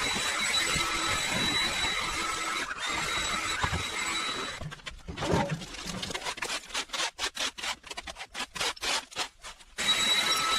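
Motor-driven power equipment running steadily, a dense rushing noise with a faint whine. About four and a half seconds in, it begins cutting in and out in quick pulses until near the end, when the steady running returns.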